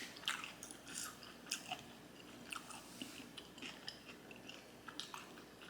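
Quiet, close-miked chewing of a mouthful of homemade sushi roll: a scatter of small wet mouth clicks and smacks.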